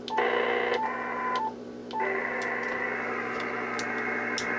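Static hiss from a CB radio's speaker on upper sideband, cut off above the treble, with three short beeps in the first two seconds and a brief drop-out about a second and a half in.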